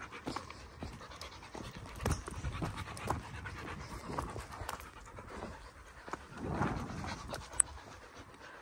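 A Rottweiler panting, with the hiker's footsteps scraping and clicking on a loose slate-and-stone path.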